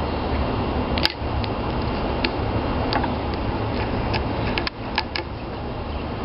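Light, scattered clicks and taps of small plastic miniature kitchenware being handled and set down, over a steady background hum and hiss.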